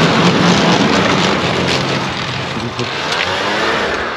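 Snowmobile passing close by and pulling away: its engine note is strong in the first second, then fades, over a steady hiss.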